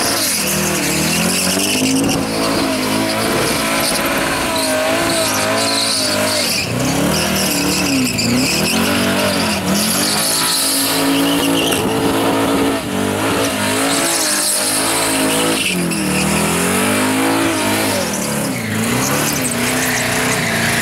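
Holden VH Commodore V8 doing a burnout: the engine held high and revved up and down again and again, over the screech of the rear tyres spinning against the track.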